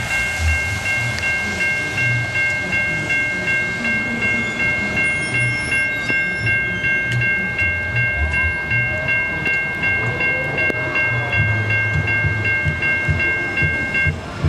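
Railroad grade-crossing warning bell ringing in quick, evenly repeated dings at a steady high pitch. It stops shortly before the end. A low, uneven rumble runs underneath.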